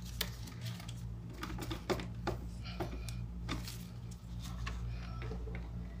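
Irregular small clicks and taps of a screwdriver and wire working plastic screw terminals on relays and contactors, over a steady low hum.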